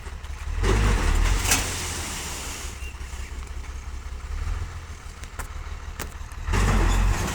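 Road traffic: vehicles passing on a main road over a steady low rumble, with two louder passes, one about a second in and one near the end.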